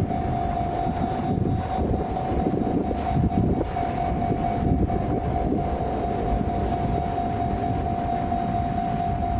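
Train running through a railway level crossing: a steady rumble of wheels on rails that swells briefly about three seconds in, under one steady high tone held throughout.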